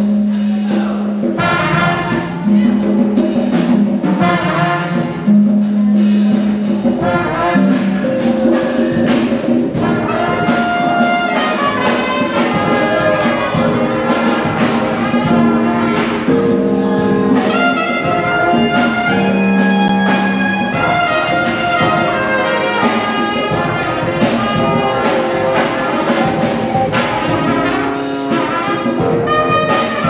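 Live brass band music: trumpets and trombones play the tune, with the trombones holding low notes, over drums keeping a steady beat.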